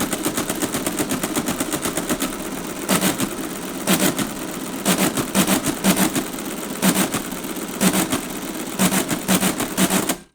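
A rapid, even train of mechanical clicks with louder clattering clusters about once a second, stopping abruptly near the end.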